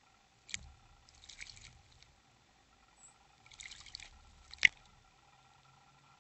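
Bird bathing in shallow water, with two short bursts of wing-flapping splashes. A sharp click comes about half a second in, and a louder sharp click follows just after the second splash.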